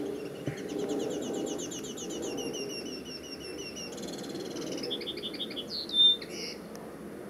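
A songbird sings one long phrase of quick repeated chirps, going into a short trill and ending with a sharp loud note about six seconds in. Under the song runs the steady low rumble of a jet airliner passing high overhead.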